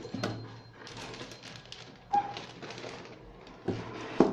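Packaging being handled as a DVR is unpacked: rustling of box and wrapping, with a few knocks, the loudest near the end.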